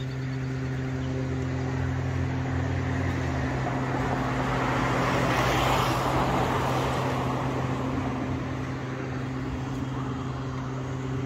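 A motor vehicle passing by: a rushing noise swells to a peak about halfway through and fades away, over a steady low engine hum.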